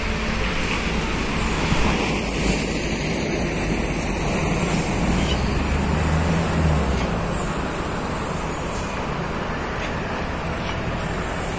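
Steady background road-traffic noise mixed with wind. A vehicle's low drone swells and fades between about two and seven seconds in.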